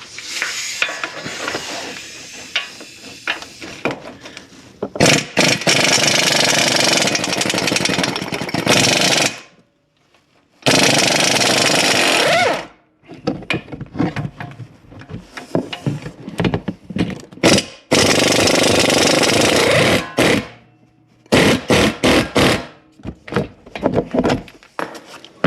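Impact wrench hammering off wheel lug nuts in several runs, the longest about four seconds, with shorter bursts and clatter in between.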